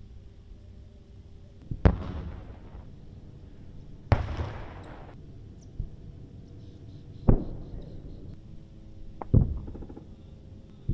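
Distant explosions: four sharp booms about two to three seconds apart, each trailing off, with another starting at the very end. The second boom is followed by about a second of hiss.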